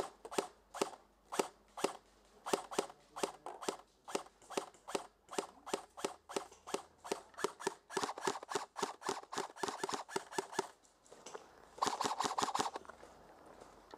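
Airsoft guns firing: a long run of sharp single shots, about three a second, then a quick rapid burst of around half a dozen shots about twelve seconds in.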